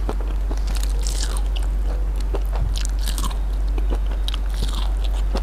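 A person chewing a mouthful of grilled fish close to the microphone, with soft wet smacks and small crackles, over a steady low hum.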